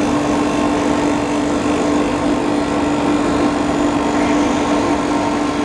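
Foam-cutting machine running steadily while slicing memory foam into a 1 mm sheet: a constant low hum over an even mechanical whir.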